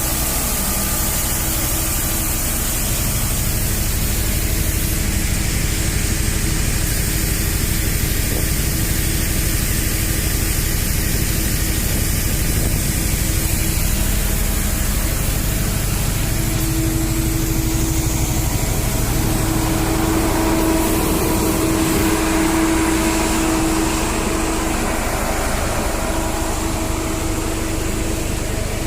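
Building machinery running steadily: an engine-like drone with a low hum and a few steady tones over a hiss, one tone swelling louder partway through. It is the noise that residents blame on the office for causing noise pollution.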